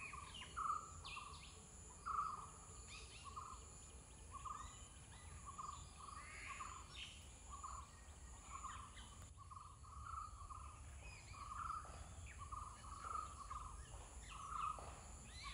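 Birds calling outdoors: one short note repeated over and over, about twice a second, with scattered higher chirps from other birds and a faint steady high insect hum behind.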